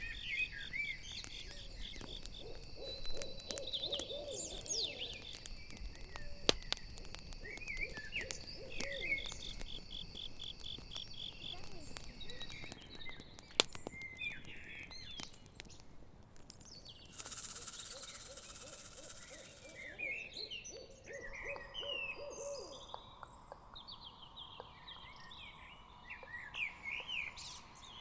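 Owl hooting in several short runs of low hoots over a campfire's crackle. Crickets trill in a steady pulsing chirp until about halfway through, and there is a brief hiss about two-thirds of the way in.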